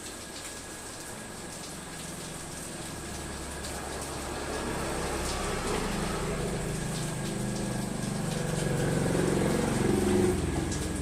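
A motor vehicle's engine passing by, building up over several seconds, loudest near the end, then starting to fade.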